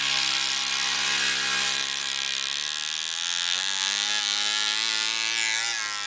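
Modified 60cc Arctic Cat Kitty Cat mini snowmobile engine buzzing steadily, then rising in pitch from about halfway as the sled speeds up, with a brief dip in pitch near the end as it goes by. The uploader says its clutch was going out, so it picks up speed slowly.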